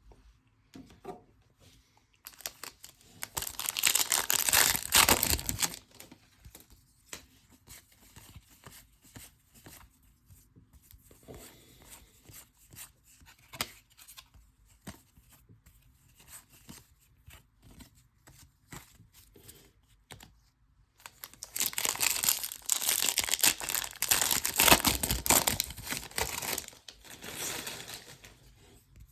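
Foil wrappers of trading card packs being torn open and crinkled, in two loud stretches about two seconds in and again near the end, with light clicks of cards being handled between them.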